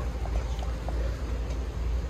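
Steady low rumble inside an Amtrak Superliner passenger car.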